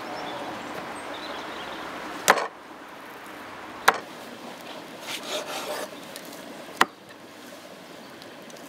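A large curved chopping knife cutting raw meat on a wooden cutting board: three sharp chops of the blade hitting the board, a second or more apart, with some scraping and rubbing of the meat in between.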